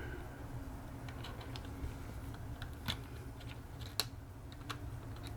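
Scattered light clicks and taps of small repair tools against the opened MacBook Air's internal parts, a few a second at most, the sharpest about four seconds in, over a low steady hum.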